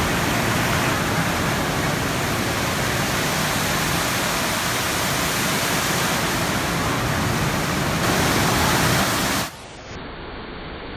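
The Rain Oculus: water swirling down through a ceiling bowl and falling as a column into a pool below, making a steady, loud rush of falling water. About nine and a half seconds in, the rush drops suddenly to a quieter, duller one.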